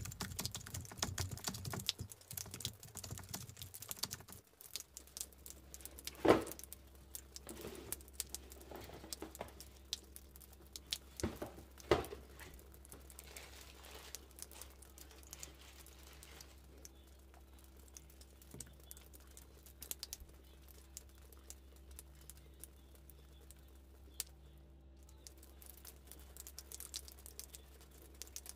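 Quiet handling of a cardboard shoebox and its tissue paper: scattered light clicks, taps and rustles, with two louder knocks about six and twelve seconds in, over a steady low hum. A low sound fades out over the first four seconds.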